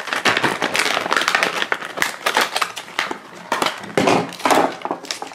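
Clear plastic blister packaging crinkling and crackling in a rapid run of sharp crackles as it is handled and pulled apart.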